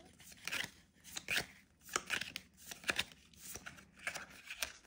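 Trading cards being handled and flicked through, giving short, crisp rustles and snaps at about two a second.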